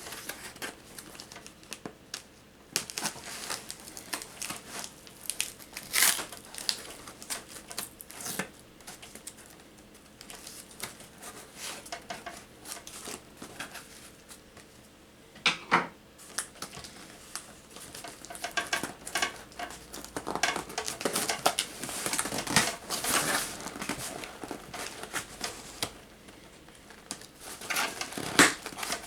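Cardboard box and its packaging being torn open by hand: irregular tearing, scraping and crinkling, with a few sharp, louder rips.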